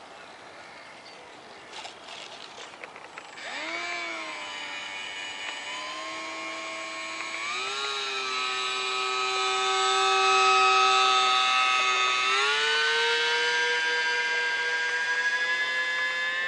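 Small electric motor and propeller of an ultra-micro RC flying boat spooling up about three seconds in, a whine that steps up in pitch twice as the throttle is advanced, then keeps climbing slowly.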